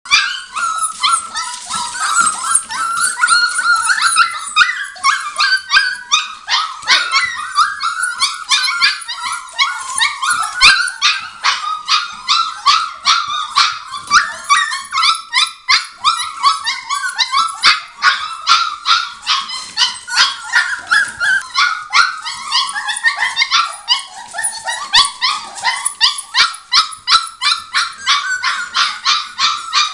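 A litter of five-week-old Border Collie puppies yapping and whining together: many short, high-pitched yips overlapping, several a second, without a pause.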